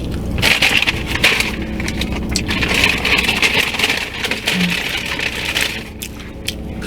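Paper food packaging rustling and crinkling as it is handled, with many small crackles, over a steady low hum.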